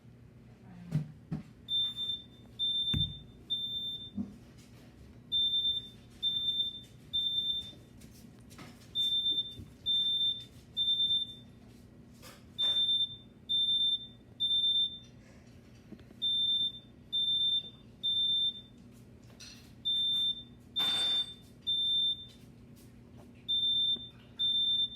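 Smoke alarm sounding its temporal-three pattern: groups of three high-pitched beeps, each about half a second long, with a pause of about a second and a half after each group. This is the standard alarm signal for smoke detected. Scattered knocks and thumps sound in between, the loudest about three-quarters of the way through.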